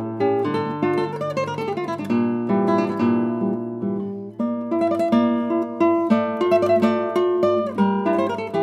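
Background music: an acoustic guitar playing a steady run of plucked notes.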